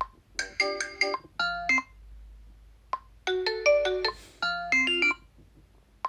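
Xiaomi Redmi 9A ringtone or notification tones previewed one after another. Each is a short electronic melody of quick pitched notes, with a brief click before it; the second starts about three seconds in.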